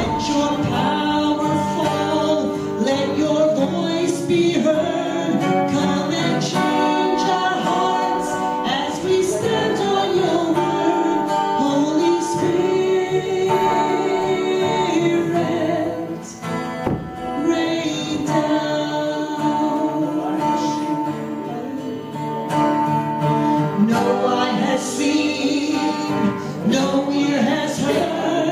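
A woman singing a worship song into a microphone, accompanied by strummed acoustic guitar, with long held notes and a brief drop in volume about halfway through.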